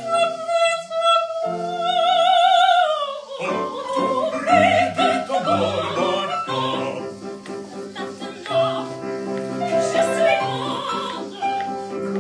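Operatic soprano holds a high note with vibrato over piano chords for about three seconds, then the piano plays on alone.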